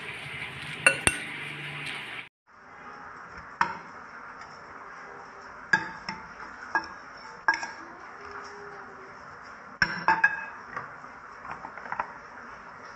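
Metal fork clinking and scraping against a white dish while a sea-grape salad is tossed, in irregular sharp taps a second or two apart over a faint steady hiss.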